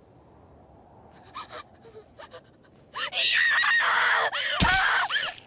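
Anime voice acting: a few faint gasps, then from about three seconds in a young woman's anguished cry with screaming. The screaming is loud and wavers up and down in pitch.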